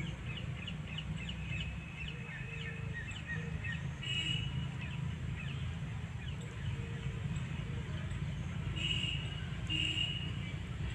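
Small birds chirping and twittering, quick chirps crowding the first few seconds, then a few short harsher calls, three of them in all, over a steady low rumble.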